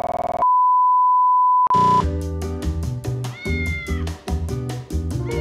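A short electronic buzz, then a loud, steady, pure beep like a broadcast 'please stand by' test tone for just over a second. Then music with a fast, regular beat starts, and a cat meows over it about three seconds in, with another meow starting near the end.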